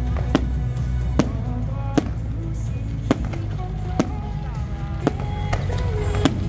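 Aerial fireworks going off in about eight sharp bangs, roughly one a second, over steady background music with a melody.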